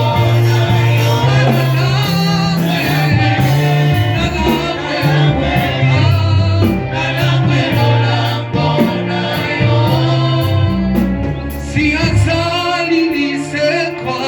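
Gospel worship music: voices singing over instrumental backing with a prominent bass line that moves from note to note.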